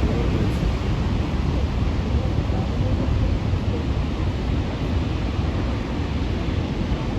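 Wind buffeting the microphone with a heavy, steady low rumble, over the continuous roar of big ocean surf.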